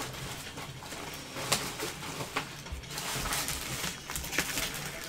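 Trading cards being handled: rustling, with a few sharp clicks about a second apart.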